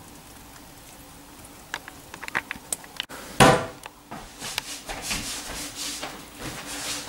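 Kitchen knocks and clatter: a few light clicks, then a loud scraping thud about three and a half seconds in, followed by a busy run of small knocks and rattles.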